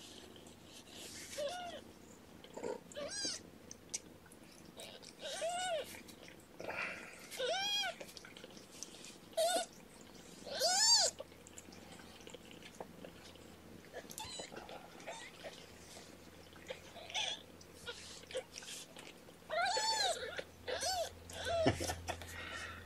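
Young kittens, about two and a half weeks old, mewing: about a dozen short, high-pitched cries, each rising and then falling in pitch, scattered through in small clusters.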